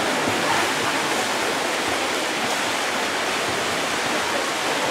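Steady rushing wash of splashing water in an indoor swimming pool, from swimmers still racing through the water.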